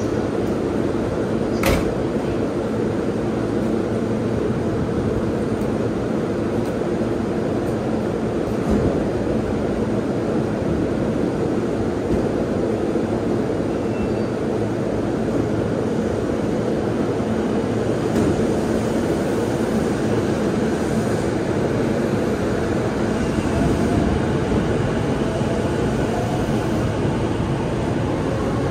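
JR East E233-series electric commuter train standing at the platform, its equipment and air conditioning giving a steady hum. In the last several seconds it pulls away, its traction motors whining with a rising pitch.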